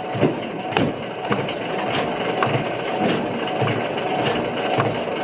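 A person walking at a steady pace, footfalls about every 0.6 seconds, over a constant rubbing noise.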